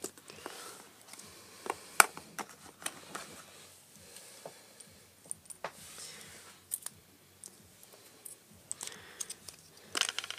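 Hands handling a smartphone and its coiled charging cable: scattered light clicks and taps, a sharper click about two seconds in, and a quick cluster of handling noises near the end.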